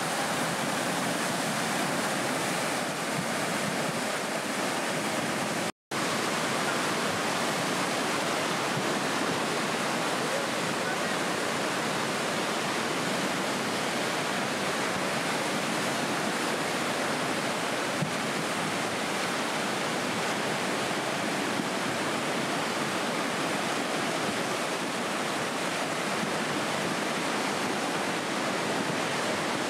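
Muddy floodwater rushing in a swollen river in full spate: a steady, unbroken noise of churning water, cut off for a moment about six seconds in.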